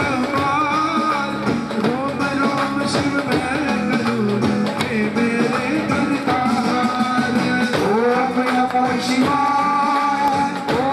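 A man's voice singing a devotional song through a microphone and PA, with instrumental accompaniment, continuous and steady.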